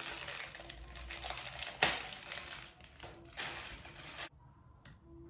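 Crinkling and crunching from handling ladyfinger biscuits and their packaging while fitting them into a dish. It goes on for about four seconds with one sharp crack near the middle, then stops suddenly.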